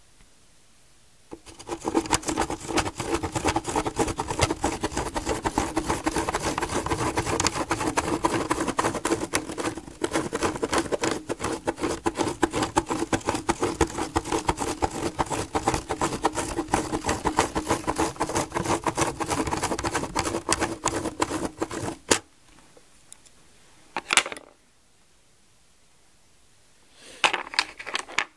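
Plastic Spirograph gear wheel driven round inside a toothed ring by a pen, its teeth ticking rapidly against the ring while the pen scratches on the paper. It runs for about twenty seconds with a brief break about ten seconds in, then stops with a click. Two short scraping rattles follow near the end.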